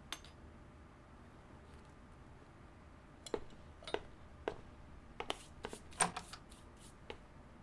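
Quiet room tone, then from about three seconds in a string of light, short knocks and clicks, about ten in all, coming closer together towards the end.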